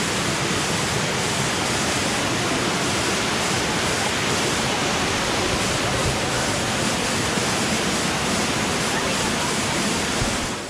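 Waterfall: a steady, even rush of falling water at close range, unchanging in level.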